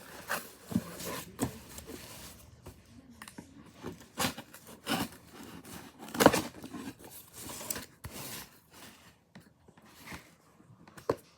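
Product packaging being handled and opened by hand: irregular scrapes, clicks and rustles, with a sharper knock about six seconds in.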